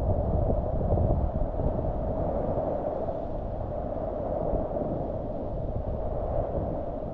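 Merced River whitewater rushing in a steady, dull wash of sound, mostly low with little hiss.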